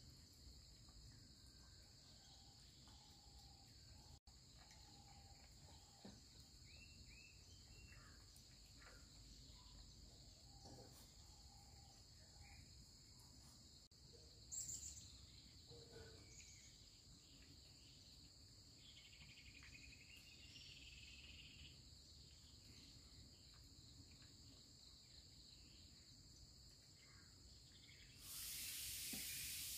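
Faint outdoor ambience: insects chirring steadily at a high pitch, with a few short bird-like calls. A brief louder sound comes about halfway, and a steady hiss sets in near the end.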